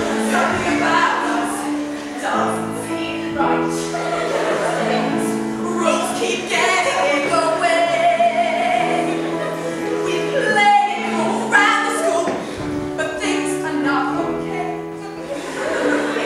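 Music sung by a group of voices, choir-like, with notes held for a second or more at a time.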